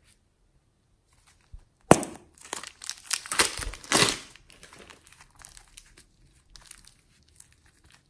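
Plastic piping bag filled with orange clay crinkling as it is squeezed and handled. A sharp snap about two seconds in leads into two seconds of dense crinkling, then softer, scattered crinkles.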